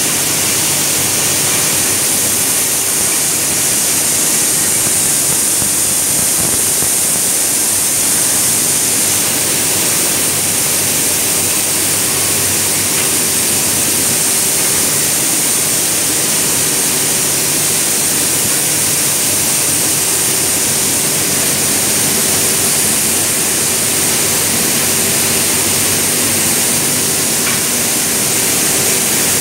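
Steady, loud hiss of air from an automatic leaf spring painting line's spray booth and machinery, with a faint steady hum underneath.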